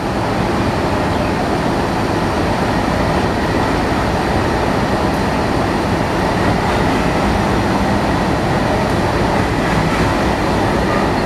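Steady, loud locomotive noise: a diesel locomotive draws slowly in along the platform beside a standing electric locomotive.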